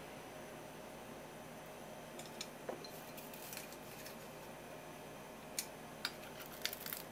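Small scattered clicks and taps of eating with chopsticks at the table, over a faint steady hiss: a cluster of light ticks a couple of seconds in, then a few sharper clicks near the end.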